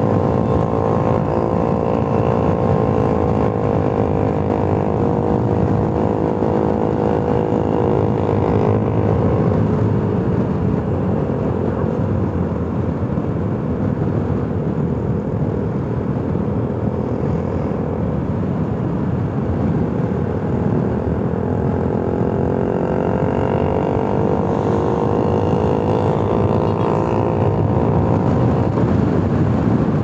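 Motorcycle engine running at riding speed over a steady rush of noise. Its pitch eases down about ten seconds in and climbs again over the last several seconds.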